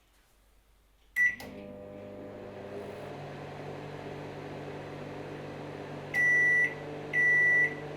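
A microwave oven starts with a short beep about a second in and runs with a steady hum. About six seconds in it begins a string of loud, high beeps, each about half a second long and about a second apart, signalling that its timer has run out.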